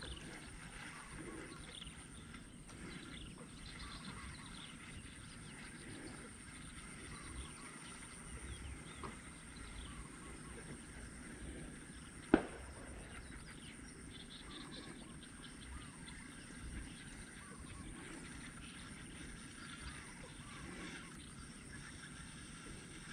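Birds calling faintly and now and then over quiet outdoor background, with a single sharp knock about halfway through that is the loudest sound.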